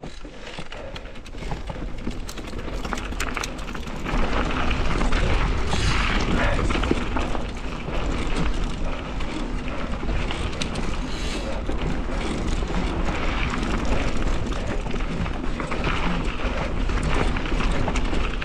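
Mountain bike riding fast down a rocky forest singletrack: a heavy rumble of wind buffeting the action camera's microphone, tyres crunching over gravel and stones, and frequent rattles and knocks from the bike over bumps. It grows louder about four seconds in as the speed picks up.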